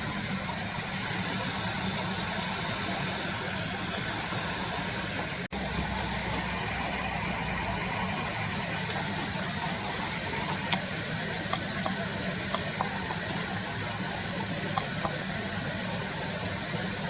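Car engine idling with a steady low hum. About five and a half seconds in the sound drops out for an instant, and a few sharp clicks come in the second half.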